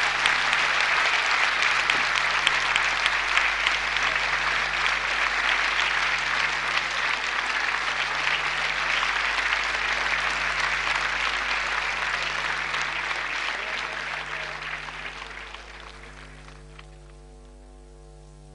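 Large audience applauding, a dense clapping that fades out over the last few seconds and leaves a steady electrical hum.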